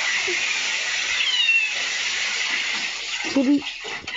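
A cat meowing, a couple of thin, high falling cries, over a steady hiss.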